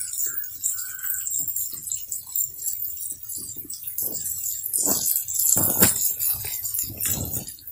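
Meatballs and tomato-onion sauce bubbling and sizzling in a cast-iron pan, with irregular pops and crackles over a steady hiss, busier in the second half.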